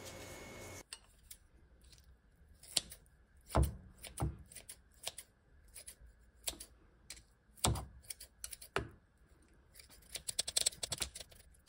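Kitchen scissors snipping through stir-fried fish cake in a plastic container: sharp, irregular snips with a quicker run of them near the end.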